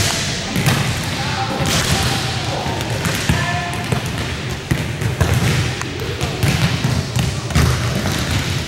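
Volleyballs being hit and bouncing on a wooden gym floor, many overlapping thumps and slaps at irregular times in a large gym, with voices of players in the background.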